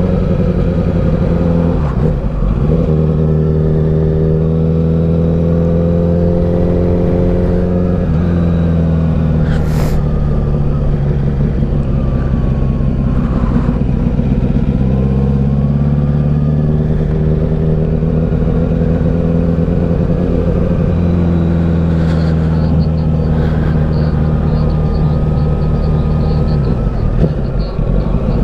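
2009 Honda CBR1000RR inline-four engine and exhaust running hard under way, its pitch slowly rising and falling, with a few short breaks in the note about two seconds, eight seconds and twenty-seven seconds in.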